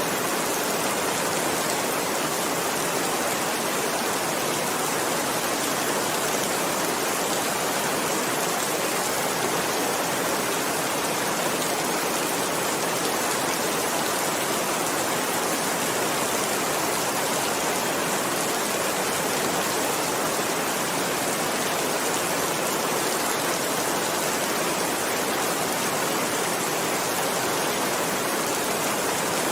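Steady rain, an even unbroken hiss that holds at one level throughout.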